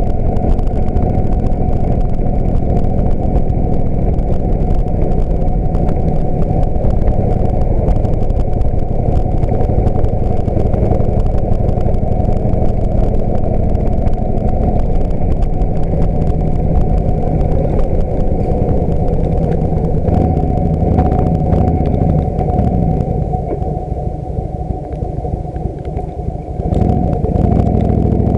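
1999 Harley-Davidson Heritage Springer's V-twin engine and exhaust running steadily under way. Near the end the engine note drops off for a few seconds as the bike slows, then rises again as it pulls away.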